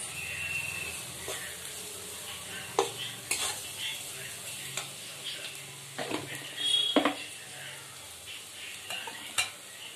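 Metal spatula stirring and scraping chopped onions and tomatoes frying in oil in a pan, with a steady sizzle and a few sharp clicks of the spatula against the pan.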